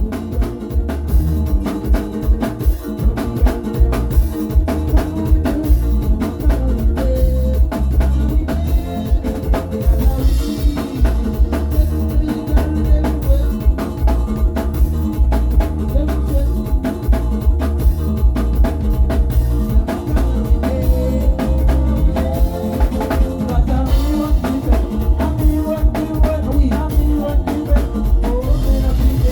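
Drum kit playing a steady beat within a band-style piece of music, with a melody and a singing voice over it.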